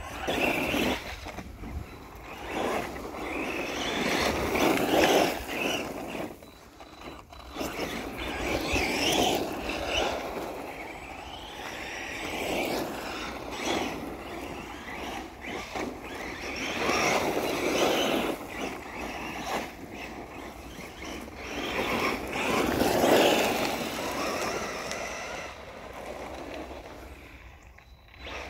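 Electric RC basher car driving on a gravel track: motor whine and tyres on gravel, swelling with each burst of throttle and fading again, about five times.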